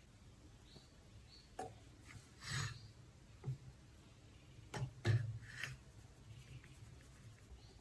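A plastic scoop and a metal mesh sieve knocking and scraping as flour is scooped into the sieve and sifted: about six short taps and rustles, the loudest a little past the middle.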